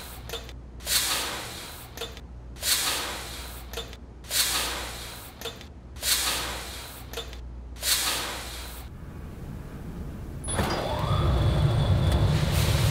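Coffee beans rushing and rattling down a metal chute in five surges less than two seconds apart, each starting sharply and fading. About ten seconds in, the steady low hum of roasting machinery takes over.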